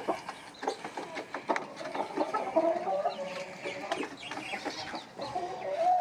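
Chickens clucking, with drawn-out wavering calls about a second long, two of them in a few seconds, over scattered small clicks and rustling.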